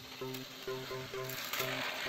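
Background electronic music with a steady repeating beat, over the whirring of battery-powered toy train motors and gears running along plastic track. The whirring grows louder about halfway through.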